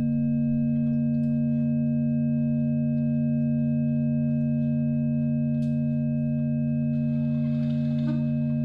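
A steady electronic drone of several sustained tones that never waver in pitch, the strongest two low and sine-like. Faint hiss and small scratchy noises come in near the end.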